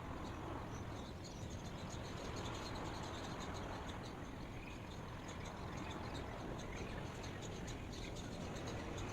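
Steady background noise with many short, faint, high-pitched chirps from small animals.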